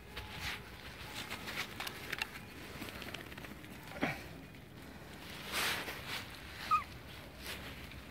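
Small animals moving about on artificial turf: light pattering and rustling. There is a short squeak about four seconds in that drops in pitch, a louder rustle a little later, and another brief high squeak near seven seconds.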